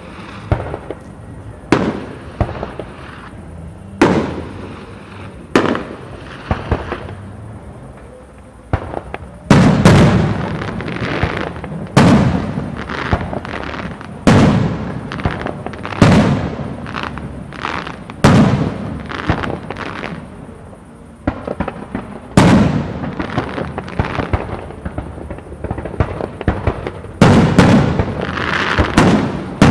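Fireworks display: aerial shells bursting with sharp bangs about every two seconds, with crackling after many of them. The bursts grow louder and heavier about a third of the way in, and near the end a dense volley of crackle sets in.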